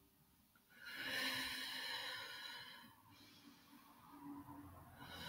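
A woman's audible breathing during a Pilates side-lying leg-lift exercise: two long, controlled breaths of about two seconds each, the first about a second in and the second starting near the end.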